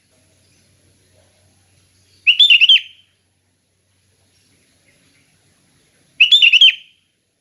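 Sooty-headed bulbul (kutilang) singing: two short, loud song phrases, each a quick run of notes, about four seconds apart.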